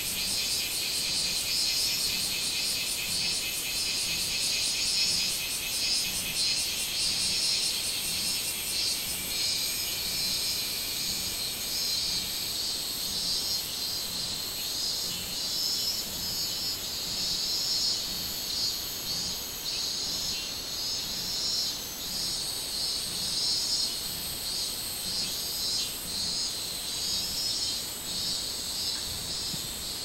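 Robust cicadas (minminzemi, Hyalessa maculaticollis) calling in a chorus from the trees, a dense, high-pitched, rapidly pulsing song. The loudest pulsing song eases off about ten seconds in while the chorus carries on.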